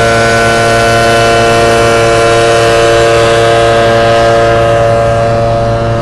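Large commercial debris blower running at a steady speed: a loud, even whine of several held tones over a rush of air, easing slightly near the end.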